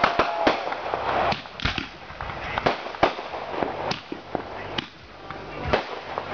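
Fireworks display: aerial shells bursting in an irregular run of sharp bangs over a continuous crackle. A whistling firework's tone cuts off about half a second in.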